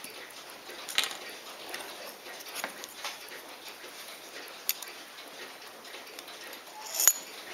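Irregular light metallic clicks and taps of steel tweezers on a Poljot Signal wristwatch's case and case back, the loudest a sharp click near the end.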